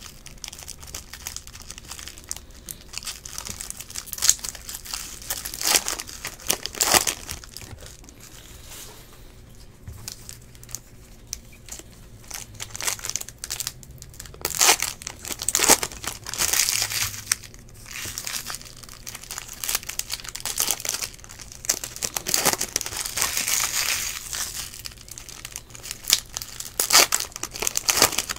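Foil trading-card pack wrappers being torn open and crinkled while the cards are shuffled in hand, in irregular bursts of crisp rustling.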